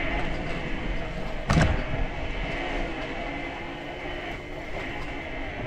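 Motorcycle engine running steadily while riding along a bumpy dirt lane, with one sharp thump about a second and a half in.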